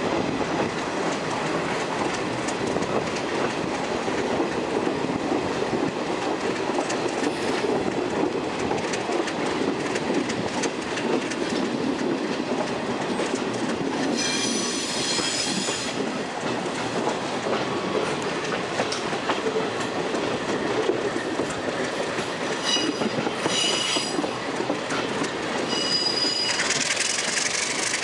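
Passenger train rolling along the track, heard from an open window of a Budd-Mafersa stainless-steel coach: a steady rumble of wheels on rails. The wheels squeal in high, whistling tones about halfway through and again a few times near the end.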